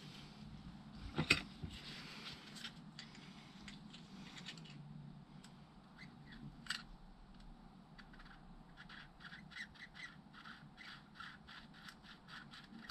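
Faint handling of a motorcycle's rear suspension linkage bearings turned with gloved fingers. A knock comes about a second in and a click midway, then a run of small squeaks, about three a second, near the end. The owner puts the squeaking down more to the glove than to the bearings.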